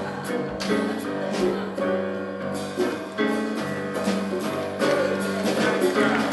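Live jazz band playing an instrumental passage, with upright bass, congas and a drum kit with cymbals.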